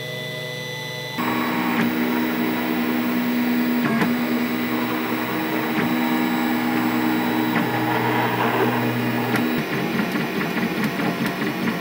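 H-bot 3D printer printing, its stepper motors running on A4988 drivers at 1/16 microstepping and whining with tones that shift as the head moves. A quieter steady hum comes first, and the louder motor noise starts about a second in.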